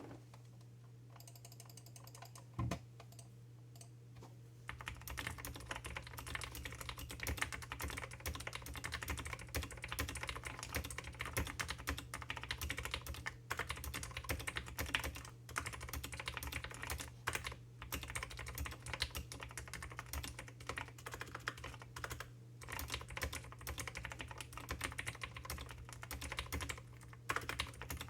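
Mechanical keyboard with clicky Akko Blue switches, lubricated with olive oil, being typed on in a dense, steady run of clicks that starts about four and a half seconds in, after a single thump. The spacebar is super rattly.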